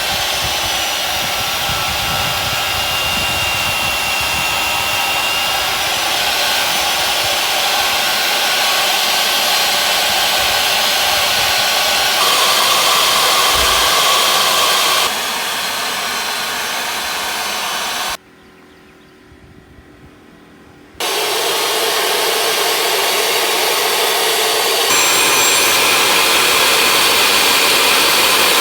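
Electric power tool running steadily and loudly on mahogany boards, cutting or sanding them smooth. It drops away for about three seconds past the middle, then starts again.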